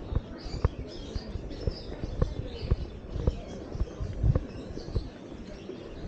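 Footsteps on stone paving, about two steps a second, steady walking pace, over faint street background noise.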